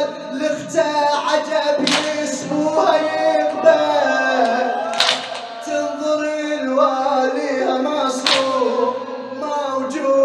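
Male voices chanting an Arabic Shia latmiya (mourning lament) without instruments. Three loud collective chest-beating strikes land about three seconds apart.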